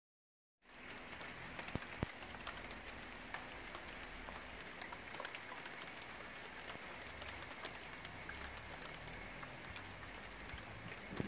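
Rain falling during a thunderstorm, faint and steady, with many small ticks of drops striking and two sharper ones about two seconds in. It begins abruptly about half a second in, after silence.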